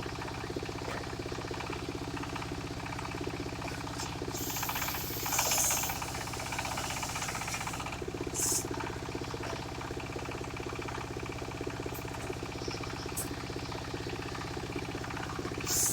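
Engine-driven mobile circular sawmill running steadily, its engine pulsing evenly, while the blade rips timber into planks; the cut briefly gets louder with a high hiss about five seconds in, again after eight seconds, and near the end.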